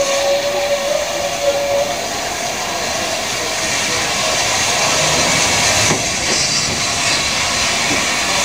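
Steam locomotive drawing a passenger train into a station, its steam hiss and running noise growing louder as it nears. A steady whistle note sounds for the first couple of seconds.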